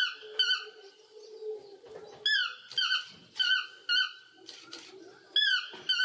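Yellow-throated (chestnut-mandibled) toucan calling: a series of short, loud yelping notes, some single and some in quick runs of two to four.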